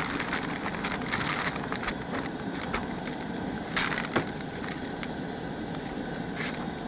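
Battered northern pike frying in hot oil: a steady sizzle with many small crackles, and a brief louder hiss a little after the middle.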